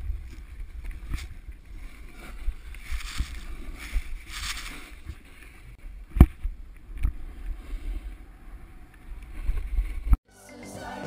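Rumble of wind and snow rubbing against a chest-mounted action camera as a fallen snowboarder slides and scrapes through snow, with a sharp knock about six seconds in. Near the end the sound cuts off and music begins.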